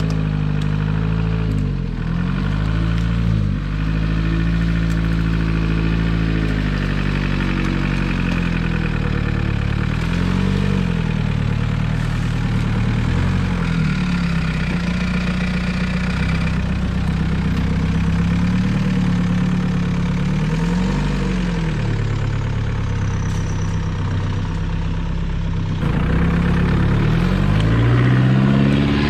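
1949 Willys CJ3A Jeep's Go-Devil four-cylinder flathead engine running at low speed, its revs falling and rising again several times and climbing near the end.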